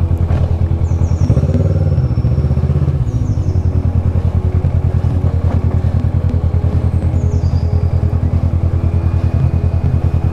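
Kawasaki Versys 650's parallel-twin engine running as the motorcycle is ridden, a steady pulsing drone with a brief rise and fall in revs about a second and a half in.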